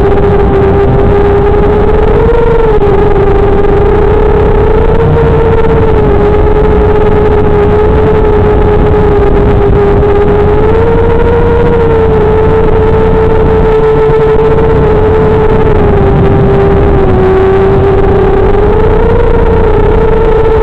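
FPV quadcopter's brushless motors and propellers whining steadily in flight, the pitch bobbing up and down a little with throttle, over a steady low rumble.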